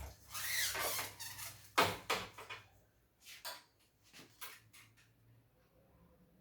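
Handling noises at a repair bench: a run of clicks, knocks and short rustles, loudest in the first two or three seconds and dying away after about five.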